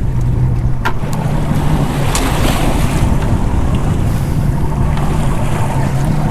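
Boat engine idling, a steady low hum, under wind buffeting the microphone and waves against the hull. Two sharp knocks come about one and two seconds in.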